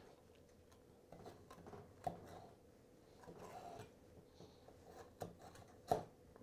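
Knife cutting lamb breast from between the ribs on a wooden cutting board: faint slicing and scraping, with a sharp tap about two seconds in and another near the end.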